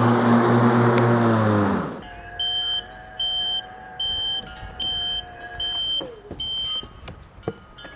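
Ryobi electric riding lawn mower's motors running with a steady whine and blade noise, then winding down with a falling pitch and stopping about two seconds in. The mower then beeps six times, short high beeps under a second apart, over a faint motor whine that drops away near the end of the beeps.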